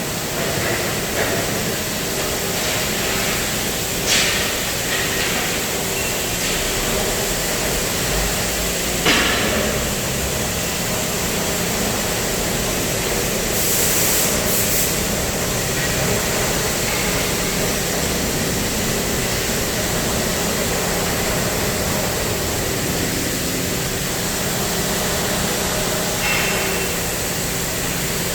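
CNC gas and plasma cutting machine at work on steel: a steady loud hiss over a low hum, with a sharp knock about four seconds in and another about nine seconds in.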